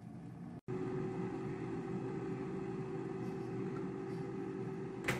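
Air fryer's fan running with a steady hum and a held whine, then a sharp click near the end as the basket is pulled out by its handle.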